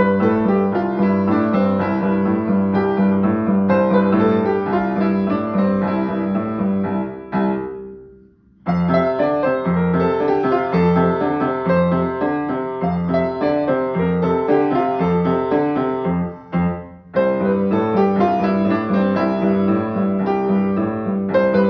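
A Yamaha upright piano being played: a melody over a steadily repeated low note. The playing stops for about a second a little after seven seconds in, dips briefly again just past sixteen seconds, then carries on.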